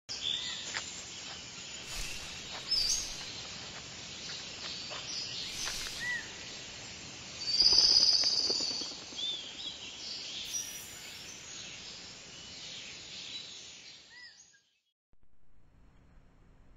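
Forest ambience with scattered bird chirps, swelling louder for about a second midway, then cutting off sharply near the end to faint hiss.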